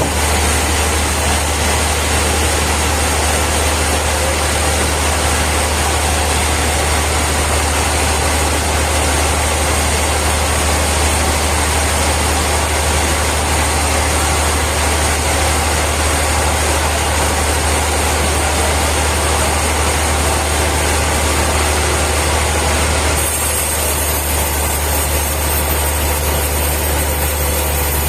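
Sawmill machinery running steadily: a loud, constant low hum under a broad mechanical noise, which changes slightly about 23 seconds in.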